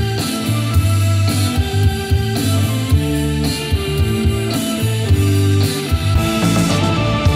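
Guitar music with strong bass notes, played through a homemade five-speaker system (two twin-driver columns and a ported cylindrical subwoofer) and heard through a microphone in the room.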